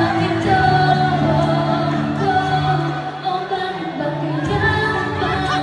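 A woman singing into a microphone over loud backing music, holding long wavering notes.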